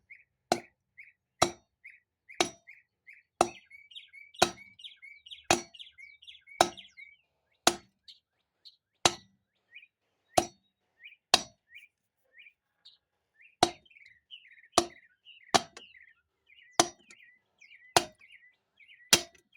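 A steel pry bar tapping a part down into a 4L60E transmission case, about seventeen sharp metallic strikes roughly once a second with a short pause about two-thirds of the way through. The solid metallic ring of the taps is the sign that the part is seated.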